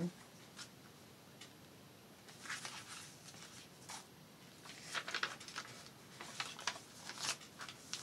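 Paper cards being handled: soft rustles and slides of paper in several short bursts.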